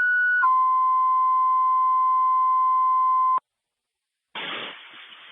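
Two-tone sequential radio paging tones over a scanner. A higher tone ends about half a second in and steps down to a lower steady tone, held about three seconds before it cuts off. Near the end, radio static opens for the next transmission.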